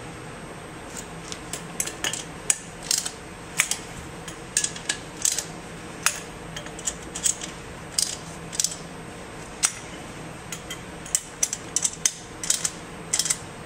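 Light metal clicks and clinks, irregular and often in quick little clusters, as the seal mount ring is fitted and bolted back onto a centrifugal pump's motor, over a steady low hum.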